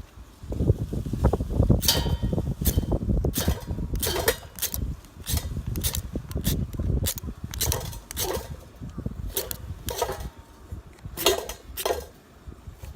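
Gusty wind rumbling on the microphone, easing in the last few seconds, with a dozen or more irregular clinks and knocks, some ringing briefly, as of metal camp gear or cookware being handled.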